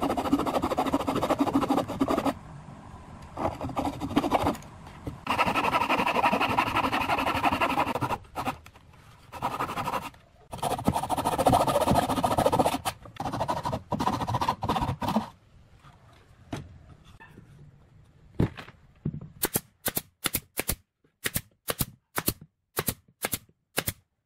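Handsaw cutting through wood, the saw teeth rasping in three stretches of a few seconds with pauses between them. Near the end, a quick series of short, sharp taps or knocks.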